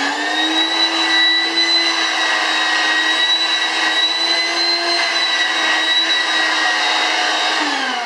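VACUBOY 85-H5-H28 portable vacuum cleaner's motor running at full speed on 220 V mains, a loud steady whine over rushing air. Near the end it is switched off and the whine starts to fall in pitch as the motor winds down.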